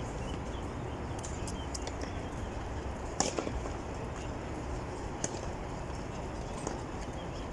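Steady outdoor background hiss with a sharp knock about three seconds in, a few fainter knocks after it, and scattered faint high ticks.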